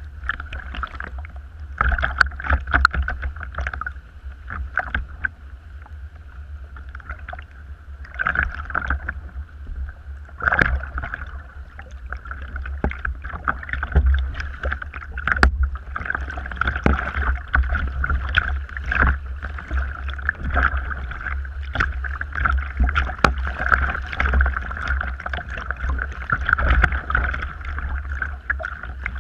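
Kayak paddling on choppy water: a double-bladed paddle dipping in and small waves slapping and splashing against the hull in irregular splashes, over a steady low rumble.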